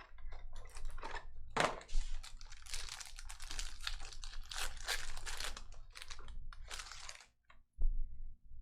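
Trading card pack wrappers crinkling and tearing as packs are ripped open by hand, with quick sharp rustles and clicks. A short pause comes near the end, then a thump.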